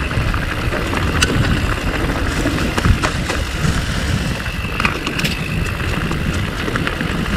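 Mountain bike ridden over a rough trail: wind rumbling on the bike-mounted microphone, with tyre noise and scattered clicks and rattles from the bike over stones and roots.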